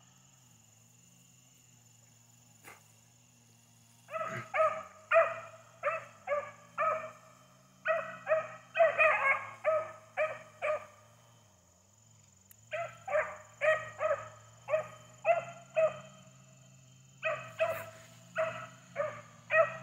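Beagles baying in short, repeated barks, about two a second, as they run a rabbit's track. The barking starts about four seconds in and comes in three runs with brief gaps between them.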